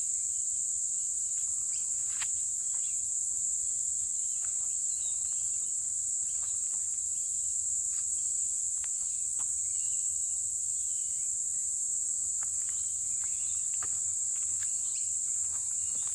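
A steady, high-pitched insect chorus with faint scattered ticks underneath.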